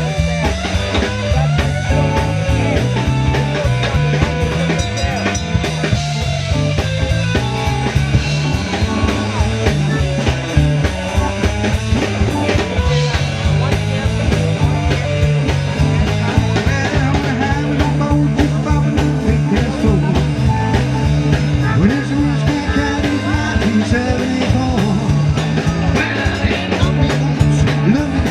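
Band playing a rock-and-roll song live, with a singer, guitar, a bass line stepping from note to note and a steady drum beat.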